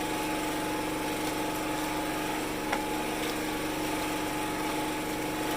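Small engine running at a steady speed, a constant even hum. A single short click about halfway through.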